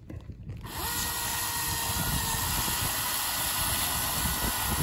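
Chainsaw speeding up about half a second in, then running steadily at full throttle as it makes the felling back cut into a small pine trunk.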